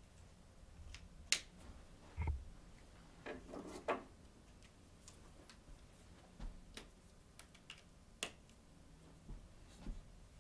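Faint scattered clicks and taps of marker pens being handled at a flip chart, with a dull thump about two seconds in and a short cluster of taps around four seconds.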